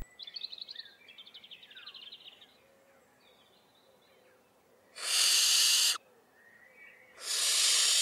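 Barn owl chicks giving their long hissing, snoring calls, the food-begging call of owlets: one about five seconds in and another near the end, each lasting about a second. Faint rapid high twittering comes before them.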